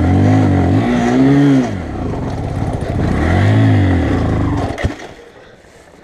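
Bajaj Boxer 150's single-cylinder four-stroke engine revved hard twice, its pitch rising and falling each time, as the bike labours up a loose rocky slope. About five seconds in a sharp knock is heard and the engine sound drops away.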